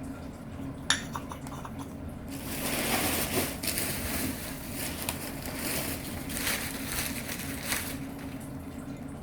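Crumpled newspaper and plastic wrapping rustling and crinkling as a wrapped pot is unwrapped by hand, after a sharp tap about a second in.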